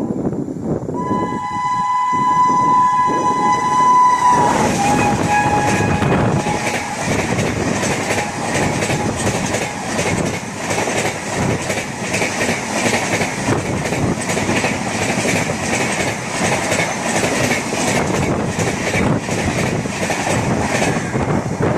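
WAP-7 electric locomotive's horn blowing one long two-tone blast that drops in pitch about four seconds in as the engine passes at speed. The express coaches then rush past with a rapid, continuous clatter of wheels over the rail joints.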